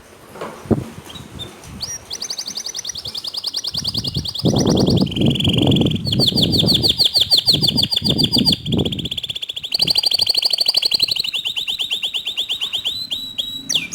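Domestic canary singing a long song of rapid trills, switching to a new trill every second or two, with lower rattling passages in the middle. It begins about two seconds in.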